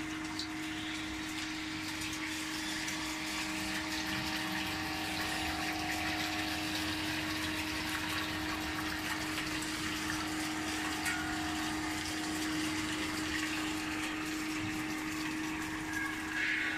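5-ton-per-day flake ice machine's ice generator running: a steady hum under an even rush of water inside the freezing drum, where the rotating blade scrapes off ice flakes.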